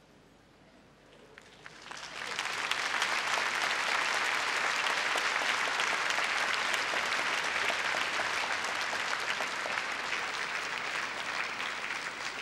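Large arena crowd applauding: the clapping swells up from quiet about two seconds in and holds steady, easing off slightly near the end.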